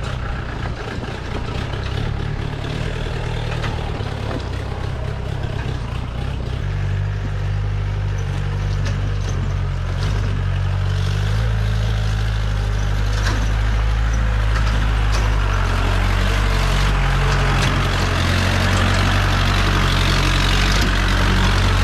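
Jeep engine running steadily as the jeep drives over a rough off-road track. Scattered clicks and knocks from the bumpy ride sound throughout, and the engine note shifts about six seconds in.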